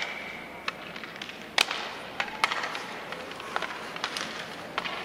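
Ice hockey play on an arena rink: sticks and puck clacking on the ice and skates scraping, with a loud sharp knock about a second and a half in. Several lighter clacks follow.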